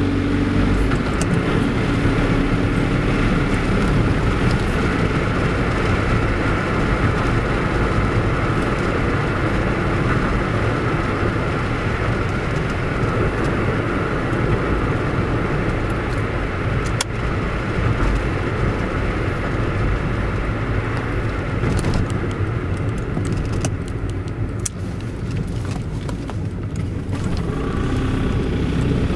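Inside the cabin of the VW Öko-Polo: its two-cylinder supercharged direct-injection diesel runs briefly, then shuts off as the flywheel-coasting function engages, leaving the car rolling with steady tyre and road noise and a few clicks. Near the end the engine starts again as the accelerator is pressed.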